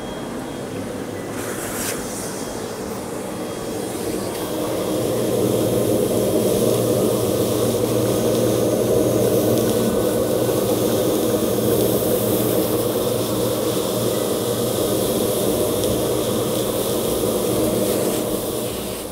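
Nilfisk VHT437EXP three-phase continuous-duty explosion-proof industrial vacuum running steadily, sucking granulated sugar off the floor through its hose nozzle. It grows louder a few seconds in and fades near the end.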